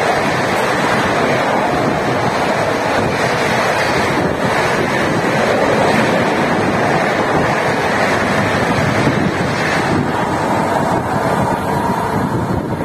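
Passenger express train coaches rushing past at high speed: a loud, steady rush of wheels on rail and air turbulence, with wind buffeting the microphone. The noise eases slightly near the end as the last coach goes by.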